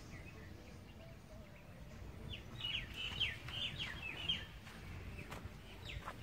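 A bird chirping: a quick run of short, falling chirps for about two seconds midway, over a low outdoor rumble, with a couple of faint clicks near the end.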